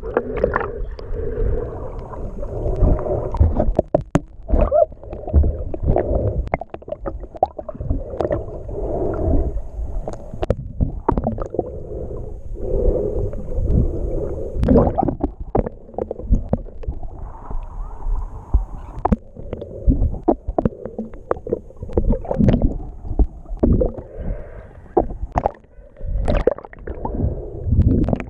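Muffled underwater water noise picked up by a submerged action camera: water sloshing and gurgling around it, swelling and falling every couple of seconds, with frequent short knocks and clicks.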